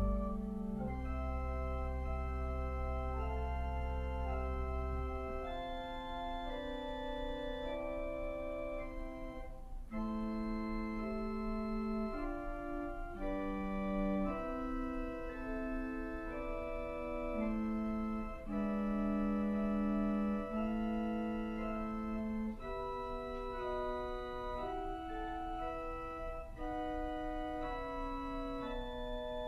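Church organ playing a slow, quiet piece of sustained chords that change every second or two; a low bass note drops out about five seconds in.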